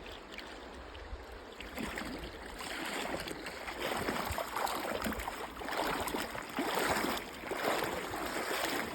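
Feet wading through the shallow Virgin River, splashing about once a second from about two seconds in, over the steady rush of the flowing water.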